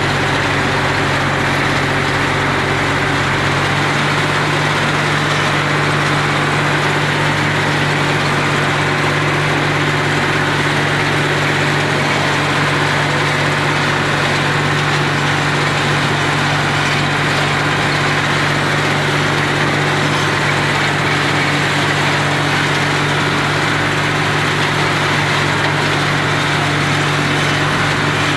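Tractor engine running steadily while driving a Maschio BC 160 flail mulcher through the rear PTO shaft, a steady engine note with an even whirring hiss over it. The deepest part of the hum drops away about four seconds in.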